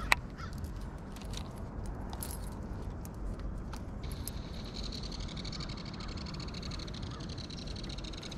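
Metal spinnerbait blades jingling and clicking as they are handled, with one sharp click at the very start. About halfway through, a steady high whine with several overtones sets in and continues.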